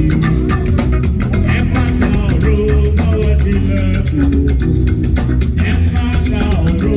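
Loud music with a steady beat: dense, regular percussion over bass and melodic lines.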